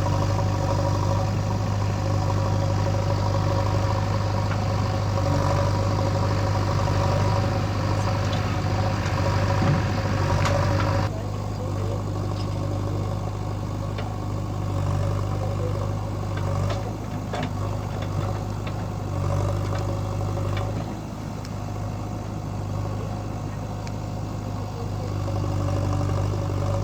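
Diesel engines of a backhoe loader and tractor running steadily at working speed, with a few short knocks. About eleven seconds in, the sound changes suddenly and the hiss above the engine drops away.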